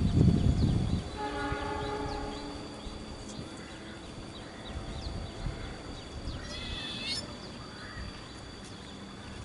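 Distant diesel locomotive horn: one steady, chord-like blast beginning about a second in and lasting about a second and a half. It follows a low rumbling in the opening second.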